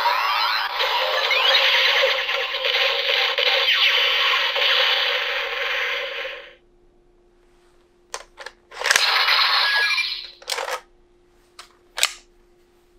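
Bandai DX Hiden Zero-One Driver toy belt playing its electronic sound effects through its small speaker, full of swooping tones, cutting off suddenly about six and a half seconds in. After a pause, plastic clicks and short rattles as the belt's parts are worked and the Progrise Key is pulled out.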